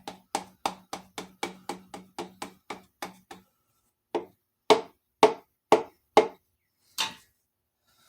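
Rubber mallet tapping a piston down through a strap-type ring compressor into the cylinder bore of a Jeep 4.0 engine block. A quick run of light taps, about four a second, fades away; after a short pause come six harder, slower knocks.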